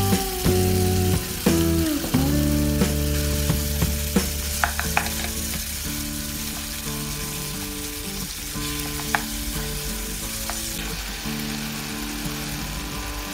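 Sliced beef sizzling in hot oil in a nonstick pan as it is stir-fried, with a few sharp clicks of the utensil against the pan. Soft background music plays underneath.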